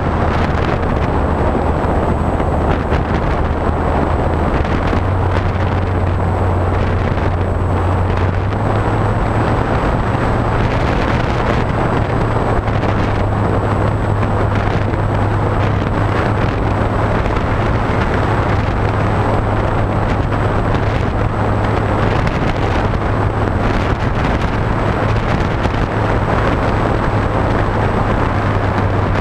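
Wind rushing over the onboard GoPro of a HobbyKing SkyEye FPV plane in flight, with the steady low hum of its electric motor and propeller underneath. The hum steps up in pitch at about five and again at about eight seconds in, as the throttle is raised.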